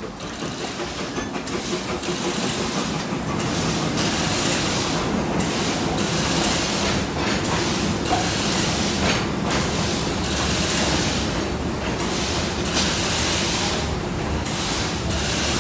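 Ride-on miniature steam locomotive running with its train: steam hiss and wheels clattering on the rails, growing louder about two seconds in as the train runs into a corrugated-metal tunnel.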